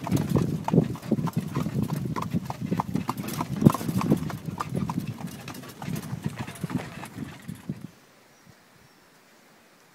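Horse's hooves clip-clopping in a steady rhythm on a dirt road as it pulls a cart. The sound cuts off suddenly about eight seconds in, giving way to near silence.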